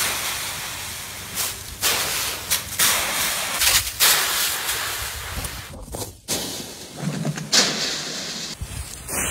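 Dry autumn leaves rustling and crunching in repeated bursts as a dog leaps into and digs through a leaf pile.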